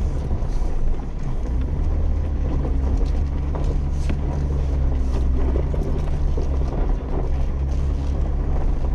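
Jeep engine running steadily at low speed as it crawls down into a small wash and back up over washouts, with a few light knocks from the rough dirt track.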